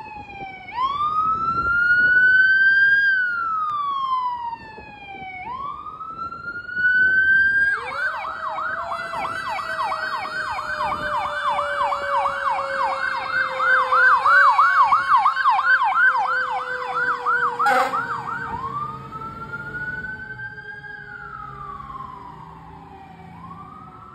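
Fire engine sirens on an emergency response: an electronic wail rising and falling about every two and a half seconds switches to a fast yelp of about three cycles a second for some ten seconds, then goes back to wail. Under the yelp a lower, steadier siren tone spins up and slowly winds down, the fire engine's Federal Q mechanical siren. A single sharp crack comes about eighteen seconds in.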